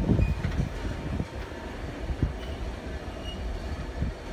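Train rolling slowly along the track, heard from aboard: a low rumble with several knocks in the first second or so, then a steadier, quieter rumble with an occasional knock.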